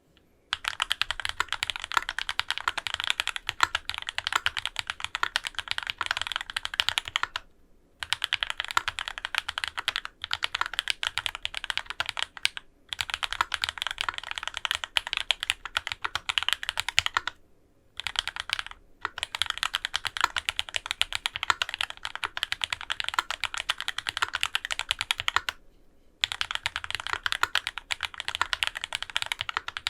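Fast, continuous typing on a custom mechanical keyboard with Krytox-lubed Thicthock A linear switches, an aluminium plate and GMK keycaps, broken by several short pauses.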